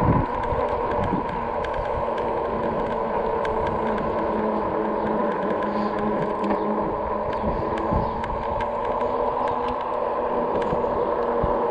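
Electric fat-tire bike riding along: the RadRover's rear hub motor whining steadily at an even pitch, over the rumble of the tyres on the path with small scattered clicks.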